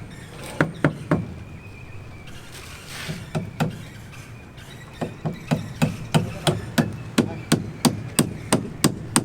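Hammer blows: a few scattered strikes, then a steady run of about three strikes a second over the last four seconds.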